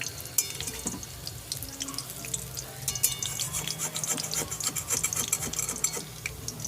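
Sweet-corn and gram-flour fritters deep-frying in hot oil in a kadai: a steady crackle of spitting oil, densest around the middle.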